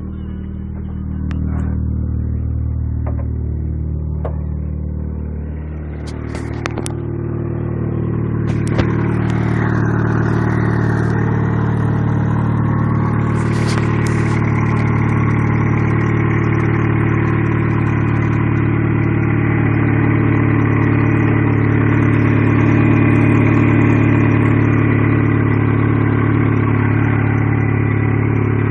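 1996 Mitsubishi Eclipse's engine running at a steady high idle, getting louder about two seconds in and again around eight seconds in, with a few sharp clicks in the first half. The owner says it is revving high and puts the rough running down to the engine being low on antifreeze.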